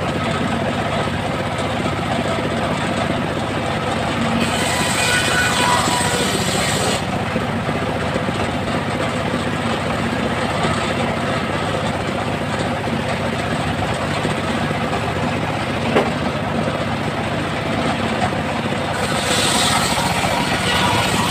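Homemade circular saw bench running steadily, its blade ripping through trembesi wood with a harsh hiss twice: about four seconds in for a couple of seconds, and again near the end. A single sharp knock comes about sixteen seconds in.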